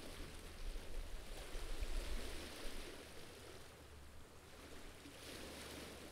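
Faint seaside ambience: a soft wash of gentle waves on the rocky shore that swells twice and fades, over a low steady rumble.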